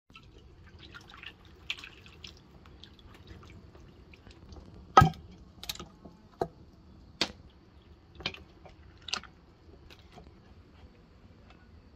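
Scattered sharp clicks and knocks of kitchen utensils and dishes being handled during cooking, about seven at irregular intervals, the loudest about five seconds in, with faint scraping between them.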